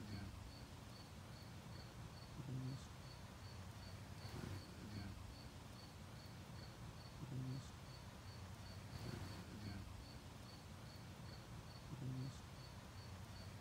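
A bumblebee on marigold flowers giving short low buzzes every two to three seconds, over an insect chirping steadily in the background, a short high pulse about three times a second.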